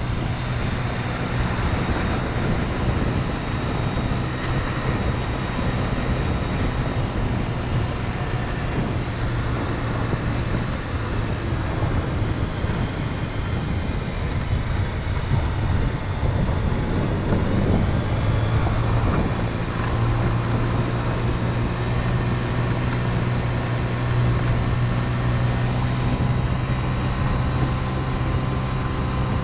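Motor scooter engine running at cruising speed, heard from a camera mounted on the scooter, with wind and road noise. The engine's pitch rises about two-thirds of the way through and then holds steady at the higher speed.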